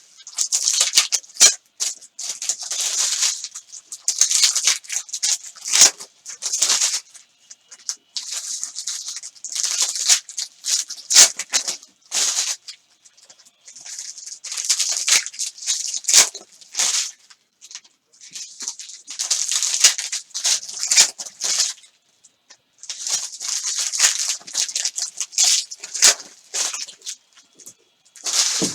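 Foil trading-card pack wrappers being torn open and crinkled by hand, a crackling that comes in repeated bursts a second or two long with short pauses between.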